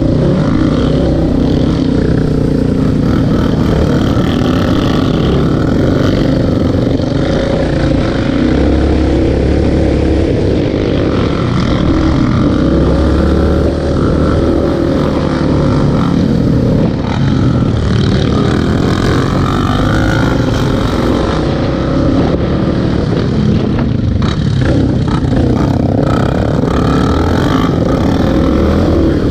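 ATV engine running under way, heard from on board, its note rising and falling with the throttle, with wind rumbling on the microphone at times.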